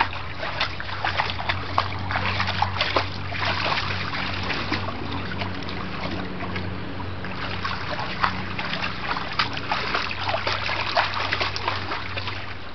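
A bulldog wades through shallow water in a plastic kiddie pool, making irregular small splashes and sloshes, several a second.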